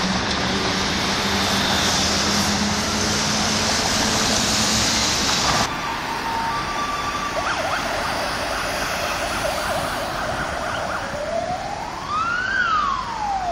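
Busy city street traffic: a steady wash of passing cars, louder in the first five or so seconds. Near the end an emergency vehicle's siren starts up, its wail rising and then falling in pitch.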